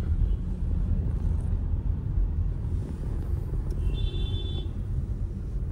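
Steady low road and drive rumble inside the cabin of a moving BMW X3. A short high-pitched tone sounds briefly about four seconds in.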